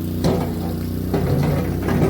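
Boxer 320 mini skid steer engine running steadily, with several sudden knocks and brief shifts in tone from the machine working.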